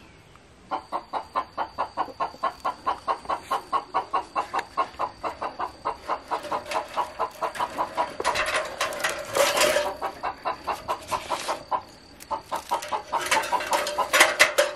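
An animal calling in a fast, even run of short pulses, about five a second, starting just under a second in. The calling grows busier and louder toward the middle, pauses briefly, then picks up again near the end.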